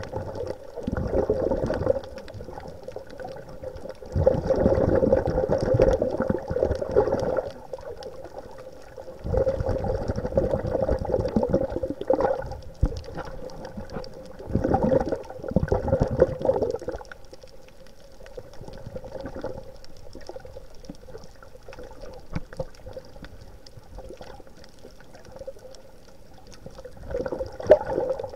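Underwater water noise with about five bursts of bubbling and gurgling a few seconds apart, over a faint steady hum.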